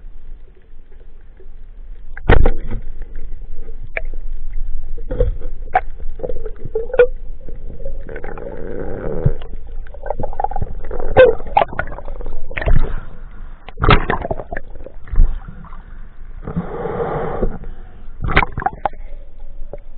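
Underwater knocks and thumps on a camera's waterproof housing with muffled bubbling and water movement as a freediver swims up toward the surface. The sharp knocks come irregularly, the loudest about two seconds in and again near the middle.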